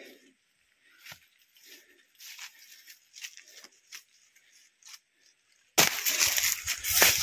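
Faint scattered rustles and footfalls of walking through grass on a dirt trail, then about six seconds in a loud crackling rustle of palm and bamboo leaves brushing close against the phone.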